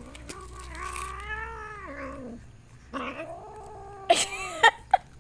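Stray cat giving two long, drawn-out yowls over its food: the first lasts about two seconds and rises then falls in pitch, the second is a little shorter. A few short sharp sounds follow near the end.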